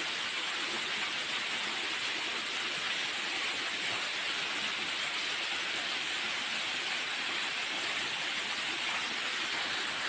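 Waterfall: a steady, even rush of falling water, with no change or break.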